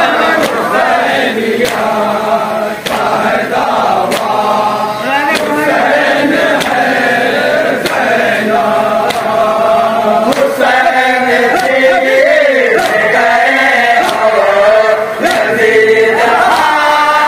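A group of men chanting an Urdu noha (Muharram lament) together, a lead voice with the others joining in. Sharp strikes at a steady beat, a little over one a second, keep time under the voices, fitting matam, the men beating their chests with their hands.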